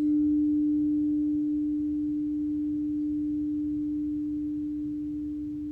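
Frosted quartz crystal singing bowl ringing one long, steady, pure tone that slowly fades. A fainter, higher tone comes in about four seconds in.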